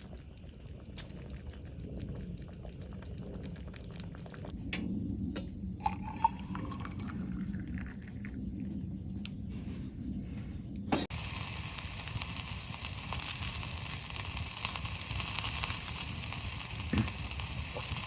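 Liquid simmering and bubbling in a pot, with a few light clicks of utensils. About eleven seconds in, the sound changes abruptly to a steady hiss.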